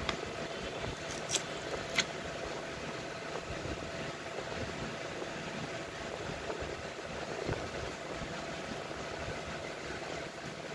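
A steady background hum with a constant tone. Three sharp clicks in the first two seconds come from the cardboard smartphone box being handled.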